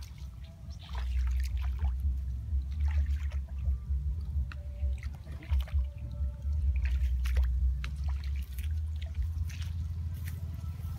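Feet wading and squelching through shallow muddy water, with scattered small splashes over a steady low rumble.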